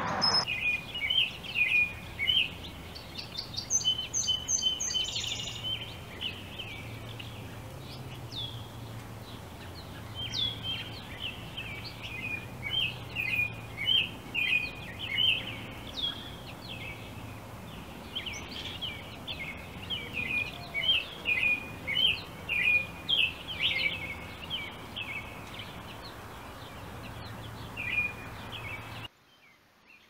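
Backyard songbirds chirping: many short, quick chirps repeated through most of it, with a brief high trill about four seconds in, over a faint low hum. The sound drops away abruptly near the end.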